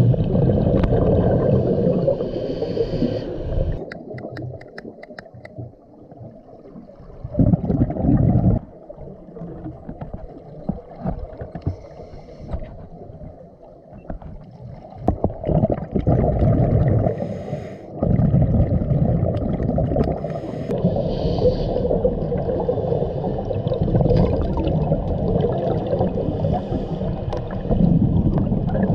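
Scuba regulator exhaust bubbles heard underwater: several long bubbling exhalations with quieter gaps between them, and faint clicking about five seconds in.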